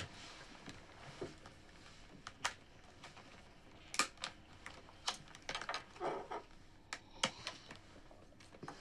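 Scattered light clicks and taps of chopsticks and plastic takeaway food containers as several people start a meal at a table, with a brief rustle of paper wrappers about six seconds in.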